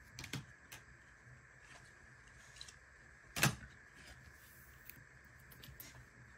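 Trading cards and a rigid plastic top loader handled on a padded mat: faint slides and light clicks, with one louder sharp tap about three and a half seconds in.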